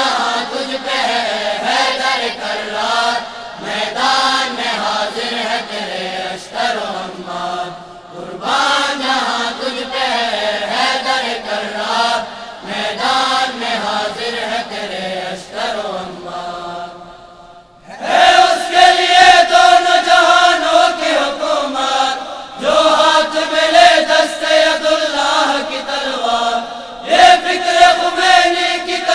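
Boys' and young men's choir singing a devotional tarana (anthem) in chorus, phrase after phrase with short breaks between. After a brief pause about two-thirds of the way through, the singing comes back louder and fuller.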